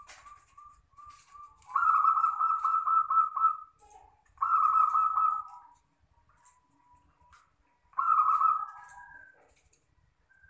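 Zebra dove (perkutut) cooing: three loud coo phrases, each one to two seconds long, with soft short notes in between.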